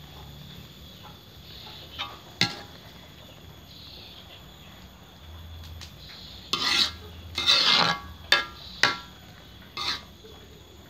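Metal ladle stirring a coconut-milk vegetable stew in an aluminium wok: a few clinks about two seconds in, then a run of scraping, clattering strokes against the pan in the second half.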